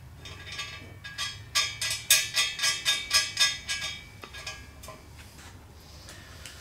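Quick metallic clicks with a short ring, about three a second, from a hand tool working an O2 sensor adapter into the threaded bung of a steel header pipe. They start about a second in and die away after about four seconds, over a steady low hum.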